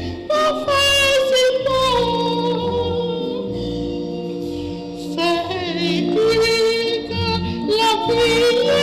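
A woman singing a gospel solo into a microphone, with long held notes, over low instrumental accompaniment.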